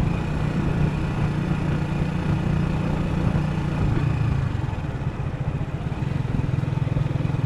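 Motorcycle engine running steadily on the move, picked up by a DJI Osmo Action 3's built-in microphone together with the surrounding road noise.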